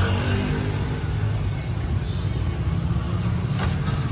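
Steady low rumble of road traffic passing, with a few light clicks near the end.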